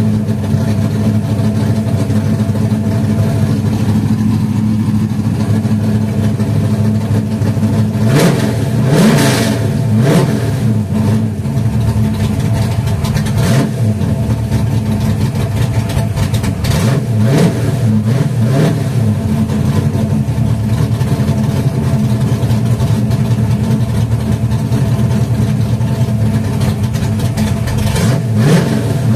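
Car engine idling through 2.5" Dynomax Super Turbo mufflers on a 3" catted X-pipe, blipped up in revs several times: twice about a third of the way in, again around the middle, and once near the end. Heard from inside the cabin.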